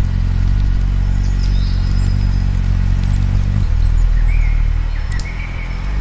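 Scattered short bird chirps and whistles over a loud, low, steady drone that changes pitch about halfway through and again near the end.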